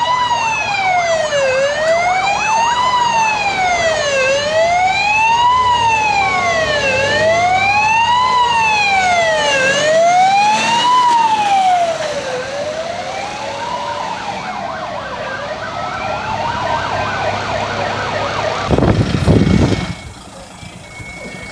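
Fire engine siren in wail mode, its pitch rising and falling about once every three seconds, growing fainter after about twelve seconds. A brief loud rumble comes near the end.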